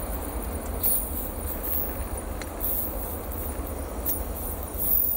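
Heavily loaded freight train of tank wagons rolling away along the track: a steady low rumble of wheels on rail, with a few faint clacks.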